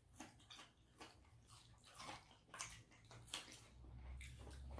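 Faint, wet chewing of food close to the microphone, with soft mouth clicks and smacks a few times a second.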